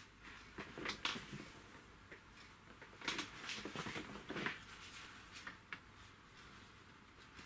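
Scattered light clicks, taps and rustles of a small tin of paint being picked up and handled, busiest in the middle stretch.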